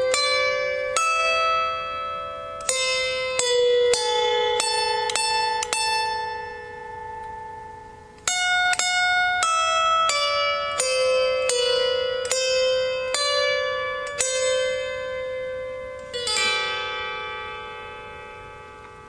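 Solo harp played slowly: single plucked notes that ring on and fade, forming a simple melody. About sixteen seconds in, several strings are plucked together and left to ring out.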